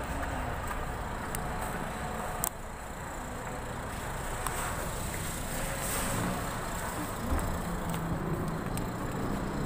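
Steady low rumble of outdoor road traffic, with a sharp click about two and a half seconds in.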